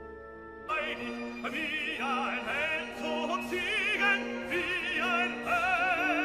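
Background music: an operatic voice singing with wide vibrato over orchestral accompaniment. It comes in about a second in, after a held orchestral chord.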